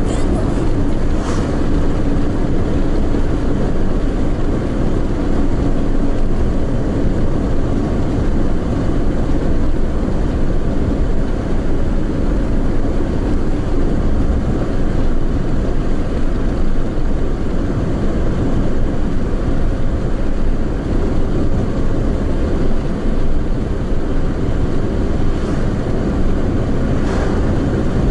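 A car driving at a steady speed: a continuous rumble of road, tyre and engine noise, strongest in the low range.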